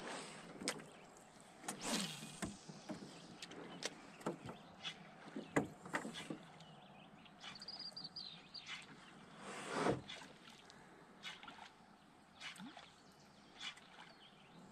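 Scattered knocks and bumps of gear and paddle against a canoe hull, about a dozen, the loudest about 2 and 10 seconds in, with a brief high chirp near the middle.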